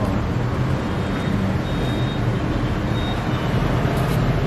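Steady low background rumble with a faint hum, like distant road traffic.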